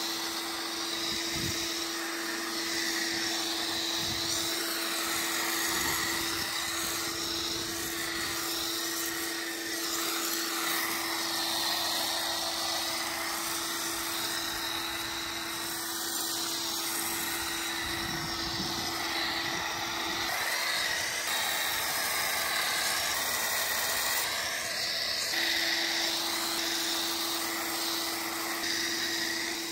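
Pressure washer's motor and pump running with a steady hum while its foam cannon sprays soap foam with a hiss. The hum weakens for a few seconds a little past the middle.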